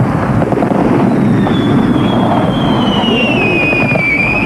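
Fireworks display going off: a dense, continuous rumble and crackle of shell bursts. From about a second in, a whistle slowly falls in pitch.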